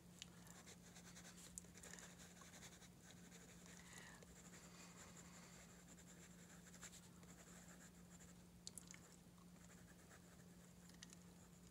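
Faint scratching of a colored pencil shading on sketchbook paper, over a steady low hum.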